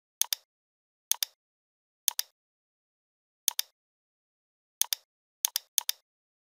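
Computer mouse clicking: seven clicks at irregular intervals of about a second, each a quick press-and-release pair, with nothing heard between them.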